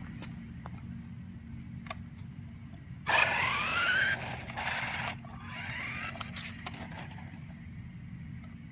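A remote-control car's electric motor whines upward in pitch as it speeds off, with a loud rush of wheel noise for about two seconds, starting about three seconds in. A second, fainter spin-up follows shortly after, over a low steady hum.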